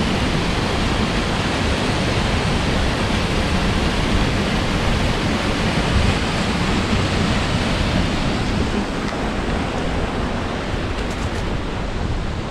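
Steady loud rush of fast-flowing water, easing slightly near the end.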